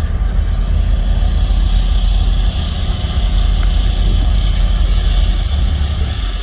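A vehicle engine running with a loud, steady low rumble.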